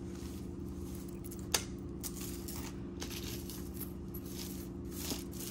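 Light clicks and rustles of beaded jewelry being handled, with one sharp click about one and a half seconds in, over a steady low hum.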